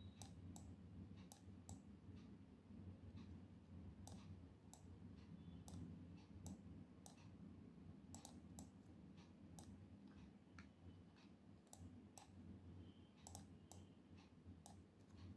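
Faint, irregular clicks of a computer mouse, a few a second, over a faint steady low hum.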